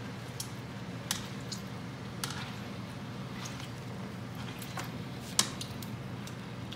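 Wire potato masher pushed down into a pan of whole grapes, squishing them to press out the juice, with scattered sharp clicks of the metal masher against the pan. The loudest click comes about five seconds in.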